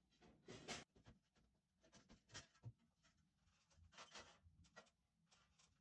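Faint, scattered handling noises: a handful of brief rustles and scrapes with quiet between them.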